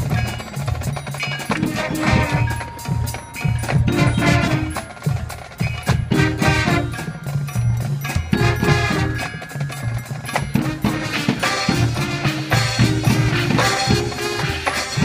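High school marching band playing a field show, with the front ensemble's marimbas, xylophones and other mallet percussion sounding along with drums and the winds.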